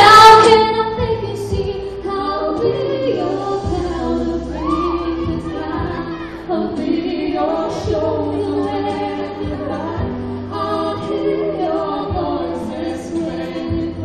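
A woman and a man singing a duet into handheld microphones, their voices amplified over the hall's sound system.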